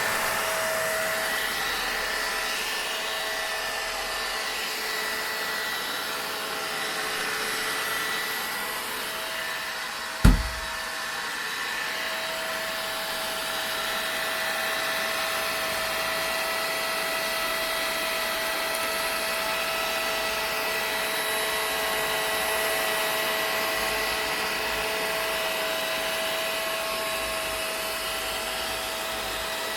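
Vacuum cleaner running steadily: an even rushing noise with a constant whine. A single brief low thump comes about ten seconds in.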